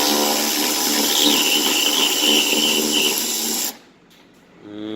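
Cordless power driver running steadily to back out a bolt, then stopping suddenly about three and a half seconds in; near the end it spins up briefly again with a rising whine.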